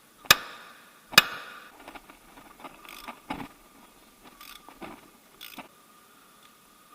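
Two sharp metallic knocks that ring briefly, the second the louder, then lighter clinks and scraping of tools and parts on metal, from hand work on a car engine during a timing-belt job.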